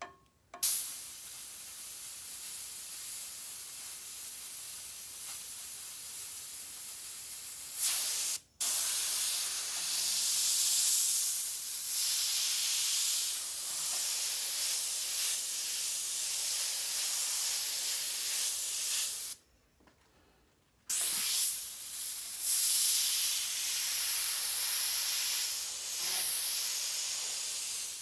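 Airbrush spraying paint: a steady high hiss of air through the nozzle that starts about half a second in. It stops briefly about eight seconds in, comes back louder, and stops again for over a second around twenty seconds.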